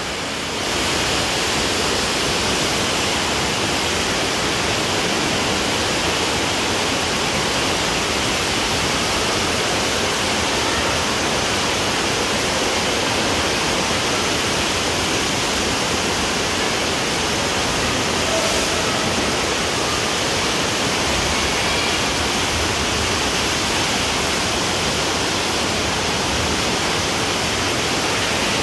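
Steady rushing of water flowing down the bowl water slide and splashing around its central funnel, a loud even noise that holds without a break.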